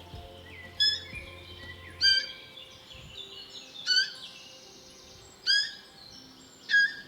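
Five short, high-pitched animal calls, about one every second and a half, each hooking up in pitch before it drops away.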